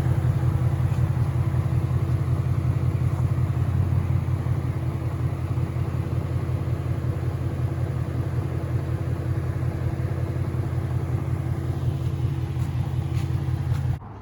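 2013 Ford Mustang GT's 5.0 Coyote V8 running steadily, with the engine noise that the owner takes for rod knock and suspects may be the crankshaft giving out. The sound stops abruptly near the end.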